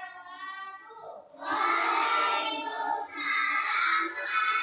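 Children singing together. A single quieter singing voice is joined about a second and a half in by many voices at once, much louder.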